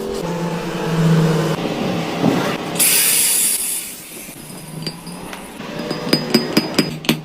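Shop machinery running with a steady hum, a short hiss about three seconds in, then a quick run of sharp metallic clicks near the end, about six a second.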